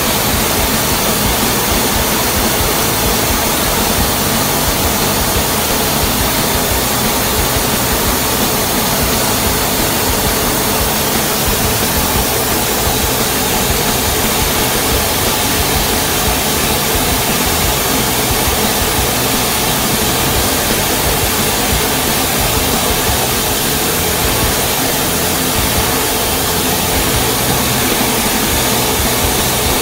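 Steady, loud rushing cockpit noise of an F-15 Eagle in flight: jet engines and air flowing over the canopy, unchanging throughout.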